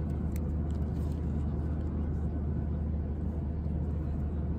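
Steady low drone of a Boeing 737-800's cabin: engine and airflow noise heard from a passenger seat, with a couple of faint clicks in the first second.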